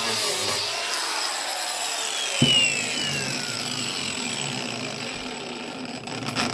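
Angle grinder fitted with a chainsaw-chain disc, cutting into wood: a steady loud grinding with a motor whine that falls in pitch, and a sharp knock about two and a half seconds in.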